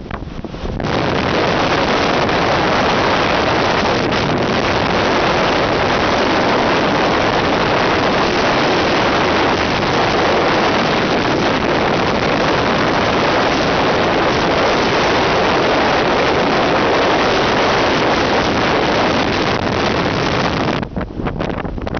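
Strong wind buffeting the microphone on an open ship's deck in a storm: a loud, steady rush of noise that starts abruptly about a second in and drops back near the end.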